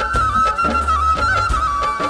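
Background music: a high, wavering melody line over bass notes and a steady beat.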